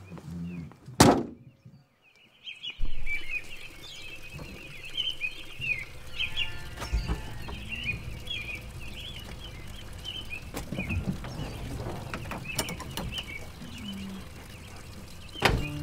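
Small birds chirping continuously over a low, steady rumble. A sharp, loud knock comes about a second in, followed by a brief hush before the chirping starts, and a few light knocks come later.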